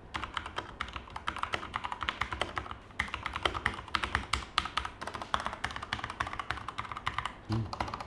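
Fast typing on a plastic-bodied 61-key mechanical keyboard with red linear switches (Armaggeddon MKA-1C Neo): a continuous, irregular clatter of keystrokes, not so loud.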